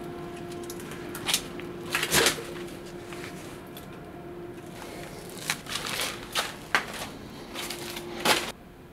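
Handling sounds from a metal cabinet door, with knocks as it swings and shuts, followed by irregular crunching footsteps on a debris-strewn floor, over a faint steady hum.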